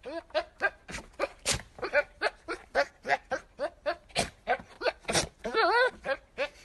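Goat calling in a fast run of short, sharp bleats, about three or four a second, then one longer wavering bleat near the end.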